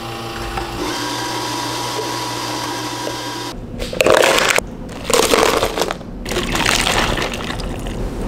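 A steady hum from a commercial espresso machine, then ice scooped with a metal scoop into a tall plastic cup: three loud rattling scoops about a second apart. Near the end, water is poured from a steel pitcher over the ice.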